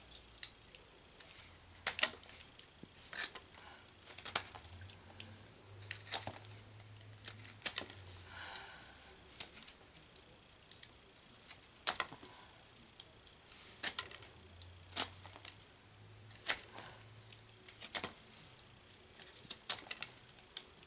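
A knife shaving the edge of a hand-cut piece of half-inch drywall, trimming the patch so it fits the hole. The sound is short, sharp scraping strokes at an irregular pace, about one a second.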